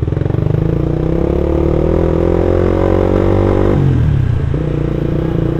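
Suzuki Satria F150 fuel-injected single-cylinder engine through an aftermarket racing exhaust, heard from the rider's seat, pulling in gear with its pitch rising slowly for over three seconds. Near the end the note drops sharply, then runs steady at a lower pitch.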